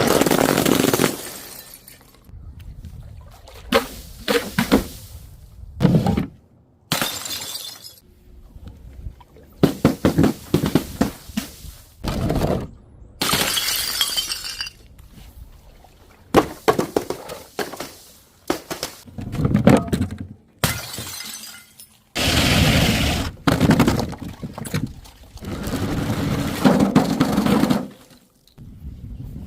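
Glass bottles and jars smashing one after another: a string of sharp shattering crashes, each followed by tinkling shards, with short pauses between breaks.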